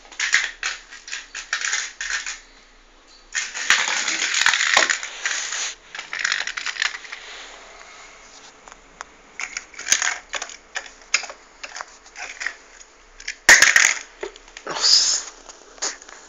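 A cat batting a small mouse around a tiled floor: quick clicks, taps and scrapes of paws and claws and the mouse skittering on the tile, with a longer rattling scuffle about four seconds in and a sharp knock near the end.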